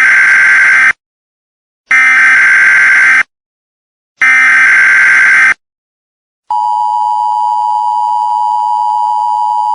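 Emergency Alert System SAME header: three bursts of digital data tones about a second long with a second of silence between them. After them, from about six and a half seconds in, the steady two-tone EAS attention signal starts, announcing a new alert.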